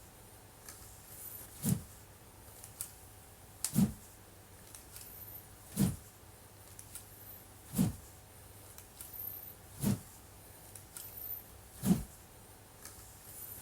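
Wooden practice sword (bokken) swung through the air in steady practice cuts: a short whoosh about every two seconds, six in all.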